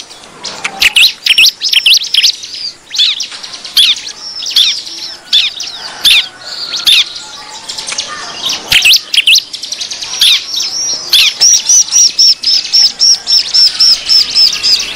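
Bar-winged prinia (ciblek) calling in an excited, busy chatter of sharp, high, arching notes, the agitated 'ribut' call used as a lure for wild prinias. Near the end it becomes a fast, even run of about four to five notes a second.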